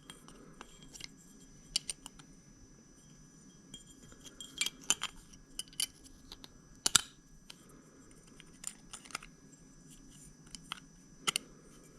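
Scattered small clicks and taps as parts of a Snap-on work light are handled and fitted together, with the sharpest click about seven seconds in.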